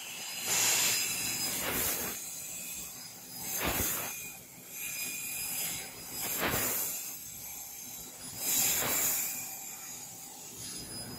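Fiber laser cutting machine cutting metal folding-door slats: the cutting head's gas jet hisses steadily, swelling loudly about every two to three seconds as it cuts each strip.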